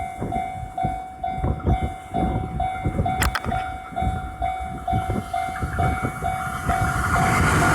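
Level-crossing warning bell ringing about twice a second while a train runs past, its wheels knocking over the rail joints. Near the end the bell stops and a louder, steady rushing noise takes over.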